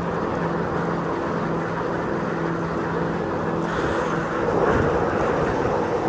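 Donzi ZR powerboat engine running at a steady pitch, a low hum under a broad rushing noise.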